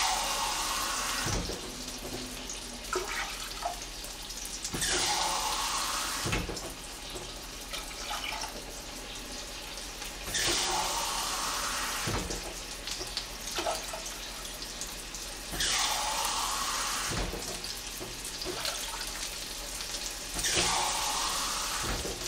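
Water running in five short rushes about five seconds apart, each lasting a second or two and ending with a soft knock.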